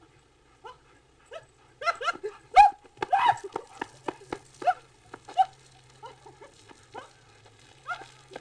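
A dog barking and yelping in a rapid string of short barks, loudest and most frequent about two to three seconds in, then fewer and further apart.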